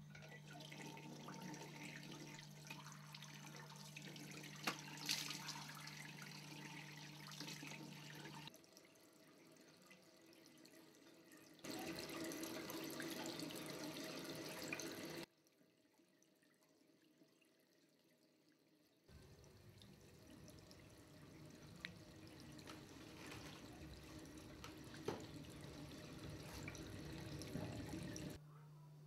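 Water running from a chrome basin tap into a sink, heard in stretches that start and stop abruptly with a near-silent gap in the middle. A steady low hum runs under the first several seconds.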